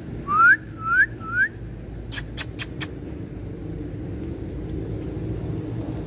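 Indian ringneck parakeet giving three loud, short, rising whistled calls in quick succession, followed a moment later by a quick run of four short, sharp, high notes.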